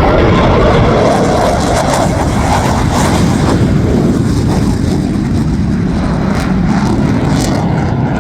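Jet aircraft flying past: a loud, steady rush of engine noise that starts to fade near the end.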